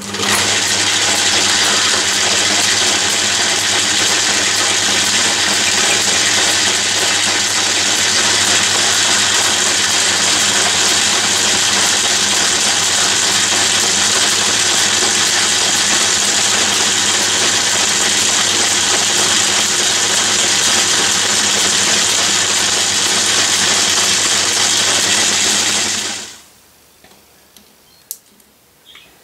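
Old metal lathe running, fairly noisy, with a steady multi-tone motor and gear hum while a cutting tool turns down a small rod. It starts right away, holds steady, then winds down and stops about 26 seconds in, followed by a few faint clicks.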